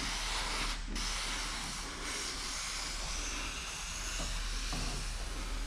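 Handheld pump-up pressure sprayer spraying a steady hissing jet of liquid along the hood edge, flushing the slip solution out from under paint protection film. The spray breaks off briefly about a second in, then carries on.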